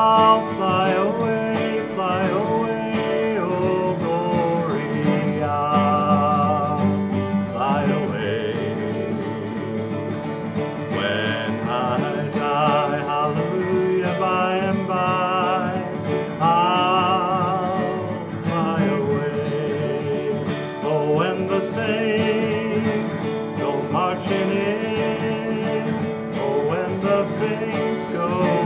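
Acoustic guitar strumming in a country-bluegrass style under a wavering melody line, with no words sung.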